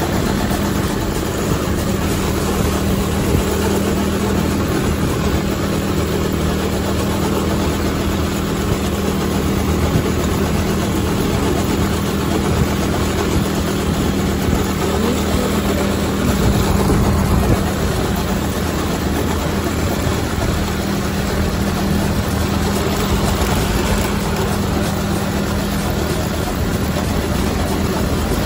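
Coleman RTK100 go-kart's small single-cylinder engine, speed governor removed, running steadily while the kart drives along. Its pitch changes briefly about halfway through, then settles again.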